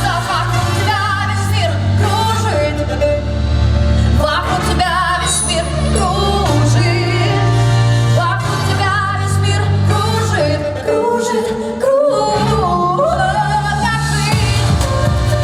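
A song: a singer's melody over an accompaniment with steady bass notes, with a short break in the music about twelve seconds in.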